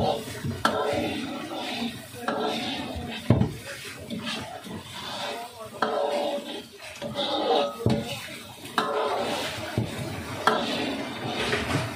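Metal spoon stirring a thick sauce in a steel wok, scraping the pan and knocking against its rim with sharp clinks every second or two.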